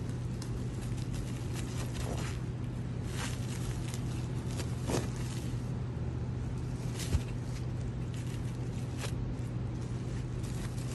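Steady low background hum with a few soft rustles and crinkles as a plastic-wrapped bamboo sushi mat and nori roll are handled and rolled by gloved hands, and one sharper tick about seven seconds in.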